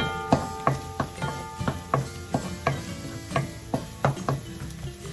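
Wooden spoon stirring diced garlic and carrots in a nonstick wok, scraping and tapping the pan in a steady rhythm of about three strokes a second.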